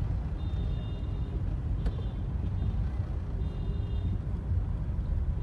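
Car road and engine noise heard inside the cabin, a steady low rumble, with faint high tones now and then.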